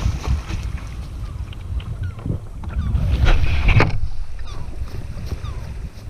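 Sea kayak hull grinding up onto a sand beach and then being dragged across the sand, a rough continuous scraping, loudest about three seconds in, with wind buffeting the microphone.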